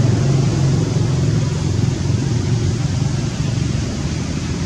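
Steady low rumble with an even hiss above it, with no distinct sounds standing out.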